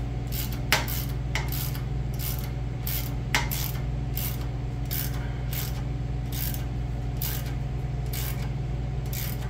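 Hand ratchet turning a clamp bolt on turbo piping, clicking in regular strokes about twice a second, with a few sharper metal knocks in the first few seconds, over a steady low hum.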